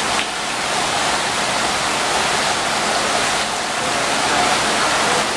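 Steady rush of heavy hurricane rain, a loud, even wash of noise with no breaks.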